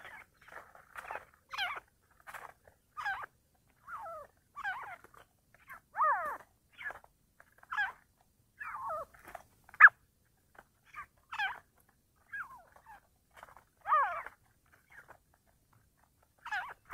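Grey francolins (teetar partridges) calling at close range in a fast run of short, harsh calls. Many of the calls slide down in pitch, and one sharp call just before the middle is the loudest. This is territorial calling between a caged decoy bird and a wild bird at the cage.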